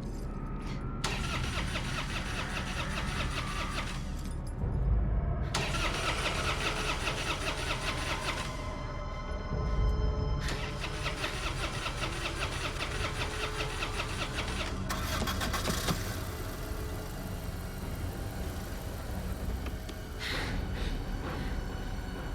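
Car starter cranking the engine over in several separate attempts, the engine failing to catch, with two dull low thumps between attempts.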